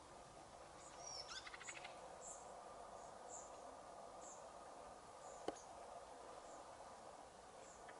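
Near silence of an evening outdoors, with faint high chirps recurring about once a second and a short rapid trill about a second in. A single sharp click about five and a half seconds in is the loudest sound.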